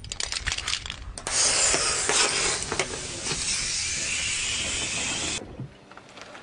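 Disposable plastic lighters being crushed under a car tyre: a few sharp cracks and clicks, then a loud, steady hiss of gas escaping from the broken lighters that cuts off suddenly about five seconds in.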